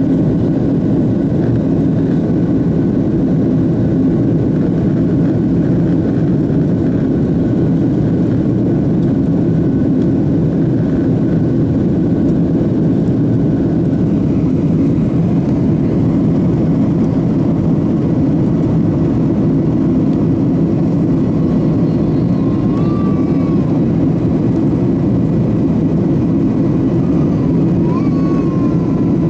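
Cabin noise inside a Boeing 737 jet airliner climbing after takeoff: the steady low rumble of the jet engines and air rushing past the fuselage. A faint high whine fades out about halfway through.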